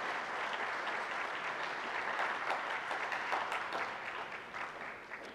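Audience applauding, a steady patter of many hands clapping that tapers off near the end.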